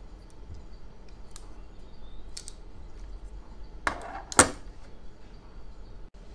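Small clicks from a metal rubber-band toy pistol being handled, then two sharp knocks about half a second apart a little past the middle, the second louder, as the pistol is set down on a tabletop.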